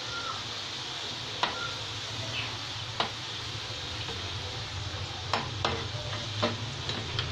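Fafda (gram-flour strips) sizzling steadily as they deep-fry in hot oil. A metal slotted spoon turning them knocks the pan with about six sharp clinks.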